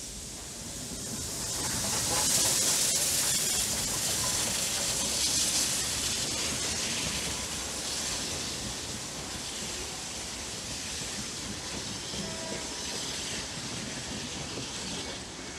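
Steam locomotive passing at speed with a hissing exhaust, followed by its carriages rolling by on the rails. The sound swells to its loudest about two to three seconds in as the engine goes past, then settles to a steady rumble and hiss as the carriages follow.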